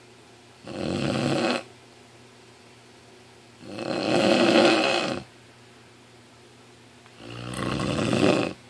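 Snoring: three long snores about three seconds apart, each lasting one to one and a half seconds, with quiet breathing pauses between.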